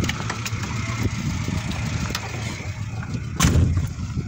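Pickup truck door slammed shut about three and a half seconds in, over a vehicle engine idling steadily.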